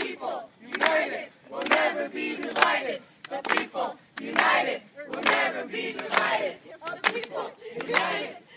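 A group of people singing a protest chant in unison in a steady rhythm, clapping their hands along with it.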